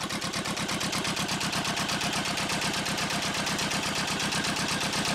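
Yanmar 2GM two-cylinder marine diesel engine running steadily, with a fast, even clatter of firing pulses.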